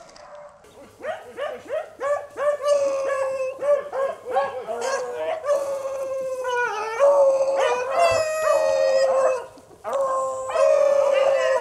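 A pack of rabbit-hunting hounds baying on a rabbit's trail. Quick choppy barks give way to longer drawn-out howls, with a brief break near the end before the baying starts again.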